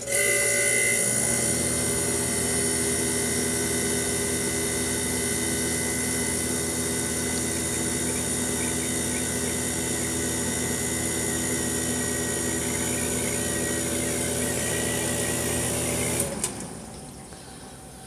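Emerson Quiet Kool DE44F-A dehumidifier switched on with a click at its control knob; its compressor and fan start and run with a steady hum, then stop about sixteen seconds in.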